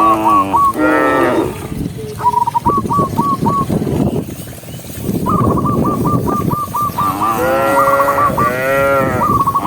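Cattle mooing several times: one moo about a second in and two longer ones near the end. Runs of short, high repeated calls, about four or five a second, come between them.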